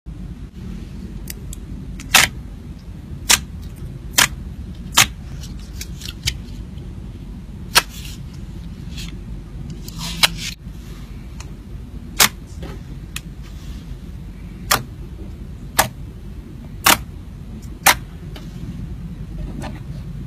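Slime being played with by hand, giving sharp pops and clicks every second or so at irregular intervals, over a steady low background rumble.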